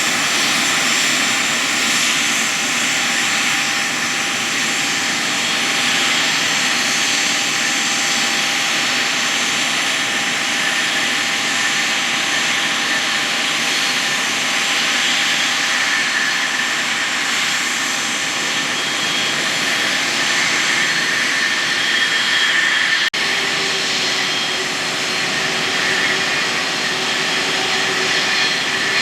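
Boeing 777-9's GE9X turbofan engines running at high power: a steady loud jet rush with whining tones held over it. About 23 seconds in the sound breaks off abruptly and carries on with a lower whine.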